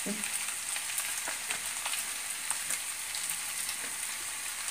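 Scrambled egg and noodles frying in a pan on a gas burner, sizzling steadily with scattered small crackles as boiled noodles are tipped in from a colander.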